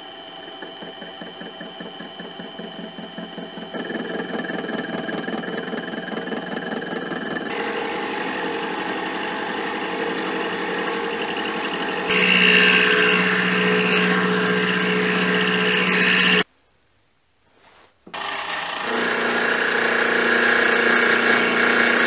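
A 16 mm carbide endmill spinning in a mini lathe's four-jaw chuck, milling a slot into the lathe's toolpost: a steady, ringing cutting noise with several held tones that grows louder as the cut goes on. About 16 seconds in it breaks off briefly, then the cut resumes.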